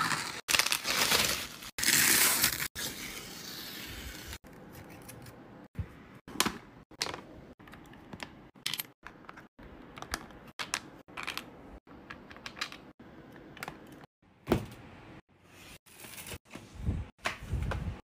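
Packaging being handled and torn open during an unboxing: tearing and crinkling for the first few seconds, then a string of small clicks and taps, broken by abrupt cuts.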